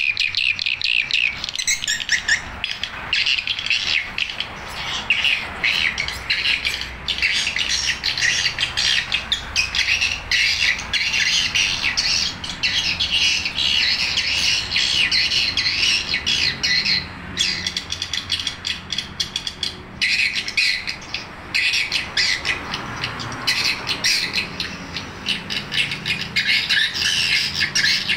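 Recorded swiftlet calls played through a horn tweeter driven by a NESTPRO BS-20 amplifier: a dense, continuous high-pitched twittering of rapid chirps. This is the lure sound used to draw edible-nest swiftlets into a swiftlet house.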